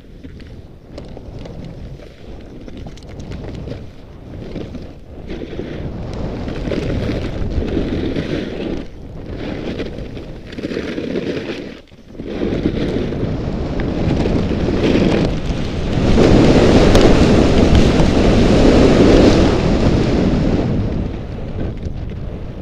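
Wind rushing over the microphone of a Contour HD action camera during a fast ski descent, mixed with the skis sliding over snow. It swells through the run with a few brief dips and is loudest about three quarters through, easing near the end as the skier slows.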